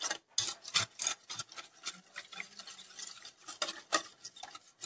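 Wire whisk beating eggs and sugar by hand in a ceramic bowl: quick, irregular clinks of the wires against the bowl with wet swishing of the liquid batter.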